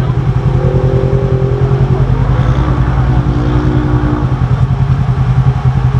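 Polaris RZR side-by-side engine idling: a steady low drone with a fast, even throb.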